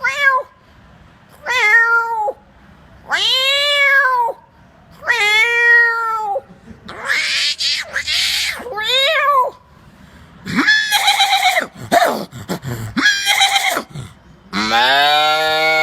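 A man imitating animal calls with his own voice: a string of drawn-out cries that rise and fall in pitch, several of them like a cat's meow, with a hoarser call midway, a quick run of short cries, and a long call near the end.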